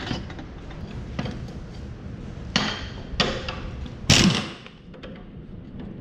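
A handful of separate metallic knocks and clanks at irregular spacing, the loudest about four seconds in with a brief ring, as an air impact wrench and socket work on the cutter-bar bolts of a hay mower.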